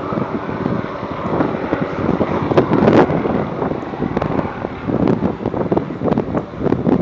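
Wind buffeting the microphone in uneven gusts, over the distant sound of a helicopter flying.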